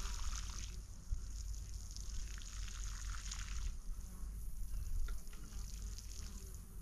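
Water pouring from a plastic watering can and splashing onto damp soil around seedlings. It is louder in two spells within the first four seconds and fainter after that.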